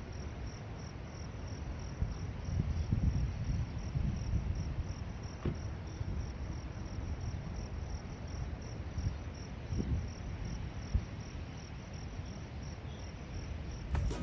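Crickets chirping steadily, about three to four evenly spaced high chirps a second, over an uneven low rumble.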